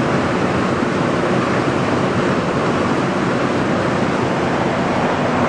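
Raw wastewater rushing through a concrete influent channel ahead of a bar screen: a steady, even rush of water with a faint low hum under it.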